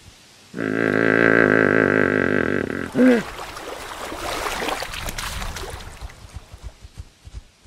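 Camel vocalizing: a wavering call of about two seconds, a short falling cry about three seconds in, then rough grunting that fades out.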